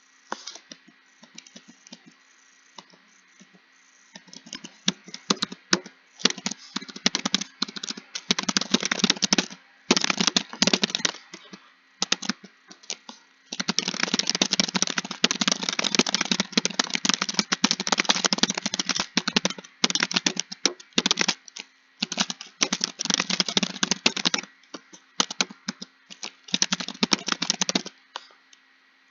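Computer keyboard being typed on quickly, keys clicking in long rapid runs broken by short pauses. The typing starts about four seconds in, and the longest unbroken run falls in the middle.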